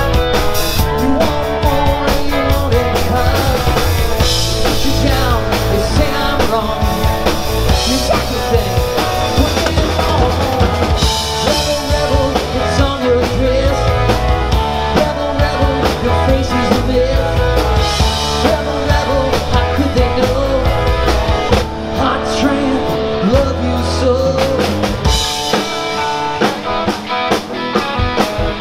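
Live rock band playing through a PA: drum kit, bass and electric guitar, with a wavering lead melody line over a steady beat. Near the end the low bass drops out, leaving mostly the drums.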